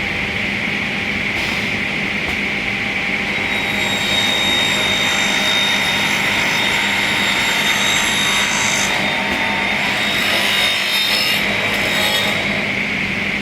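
Multi-blade rip saw machine running with a steady hum, its blades ripping wood from about three and a half seconds in until near the end, when the cut adds a high whine.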